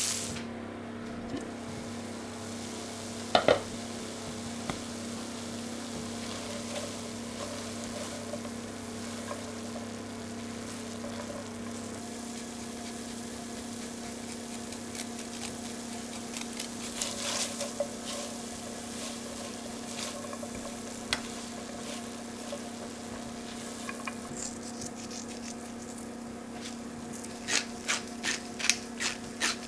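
Mixed-grain risotto sizzling softly in a stainless steel pan, over a steady low hum. A sharp double knock comes about three and a half seconds in, and near the end a quick run of metal spoon clinks against the pan as stirring starts.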